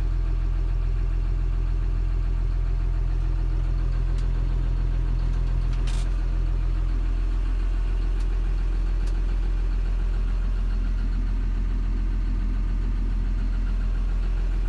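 John Deere 6830 tractor's six-cylinder diesel idling steadily, heard from inside the cab, with a single sharp click about six seconds in.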